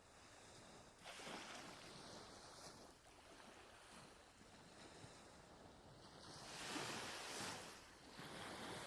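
Ocean waves washing ashore: a soft, steady hiss of surf with two swells as waves break, the second and louder one about seven seconds in.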